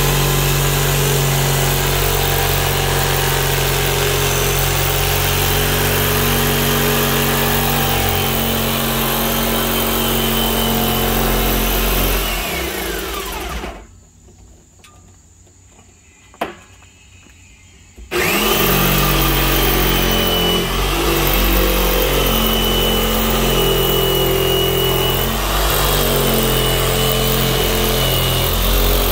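Porter-Cable jigsaw cutting through the top of a plastic 55-gallon drum. The saw runs steadily, winds down about twelve seconds in, and after a few quiet seconds broken by a single click it starts again and cuts on.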